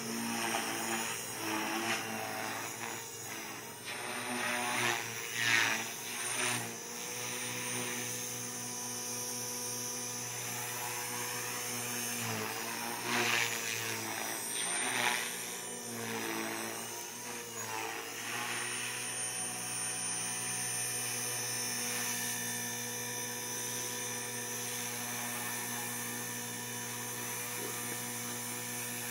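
Align T-Rex 450 Pro electric RC helicopter in flight: the whine of its motor and rotor blades rises and falls in pitch and loudness as it manoeuvres over the first two-thirds, then settles into a steady tone as it hovers low over the water.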